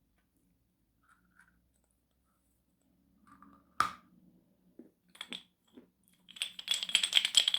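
Chalk being tapped and knocked: one sharp tap about four seconds in, a few softer taps, then a fast flurry of clinking knocks near the end.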